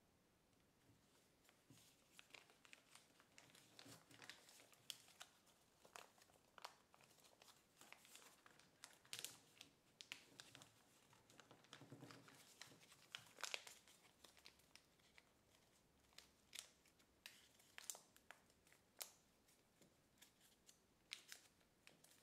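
Sheet of kraft paper crinkling and crackling under the fingers as it is creased and folded, in faint, irregular snaps starting about two seconds in.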